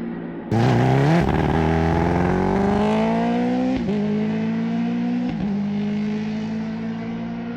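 Honda CB650R's inline-four engine through a Leo Vince LV One Pro exhaust, opening up sharply about half a second in and climbing in pitch for about three seconds. Two short breaks follow as it changes gear, then it runs on more steadily and slowly gets quieter.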